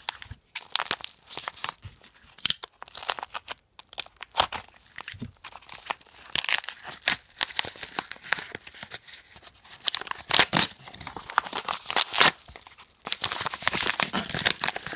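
Paper packaging being torn open and crumpled by hand, in irregular bursts of tearing and crinkling.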